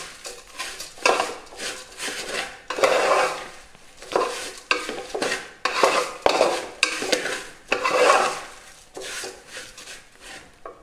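A spoon stirring and scraping a banana, flattened-rice and sugar filling around a pan of butter, in repeated strokes about once a second, over a sizzle of frying.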